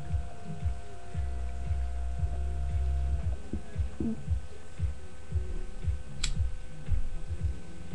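A steady electrical hum with irregular low thumps underneath, and one short, sharp click about six seconds in.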